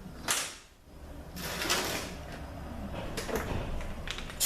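Hand tools working the pump bolts on a THM-350 automatic transmission as they are loosened and backed out: sharp metal clinks and rasping scrapes.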